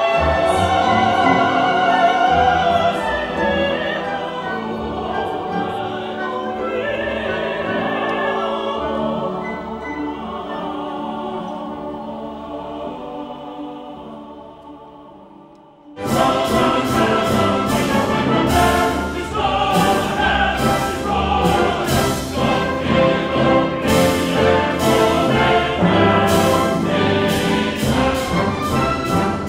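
Opera: voices and chorus singing over an orchestra, fading down about fifteen seconds in. It then cuts suddenly to louder orchestral music with brass and sharp, evenly repeated accented strokes.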